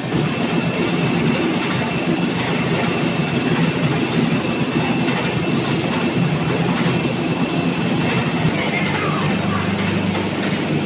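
Snack-chip production line machinery running: a steady, loud mechanical din of motors and conveyors, with a low hum and a faint steady high whine.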